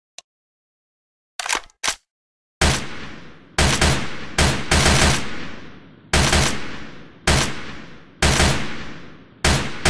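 IMI Uzi submachine gun firing short bursts of automatic fire one after another, about one a second, each burst trailing off in a long echoing decay. A few short, sharp clacks come first.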